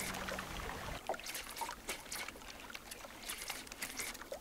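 A low steady hum that cuts off abruptly about a second in, then light water lapping at the shoreline with irregular small splashes and ticks.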